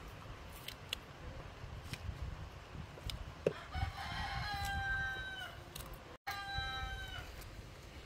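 A rooster crowing twice, each a long held call that drops in pitch at the end. Before it come a few light clicks of a knife cutting scallion in the hand.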